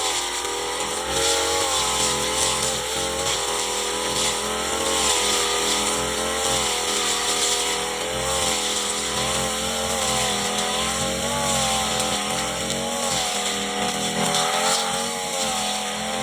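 Brush cutter engine running at high speed throughout, its pitch drifting slightly up and down as the load changes while it cuts grass.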